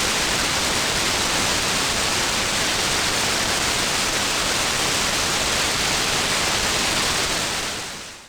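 Steady hiss and static from a shortwave radio receiver with no station left audible, the band having faded out. The noise fades away near the end.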